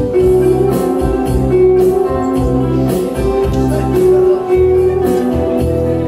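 Steel-string acoustic guitar playing an instrumental passage: strummed chords with held melody notes over a bass line.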